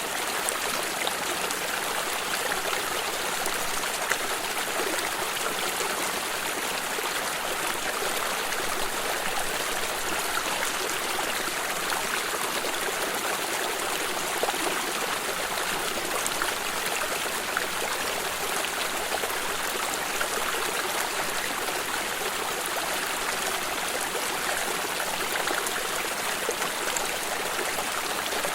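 Running water of a stream flowing steadily over stones, a constant rushing splash with small trickling and bubbling details.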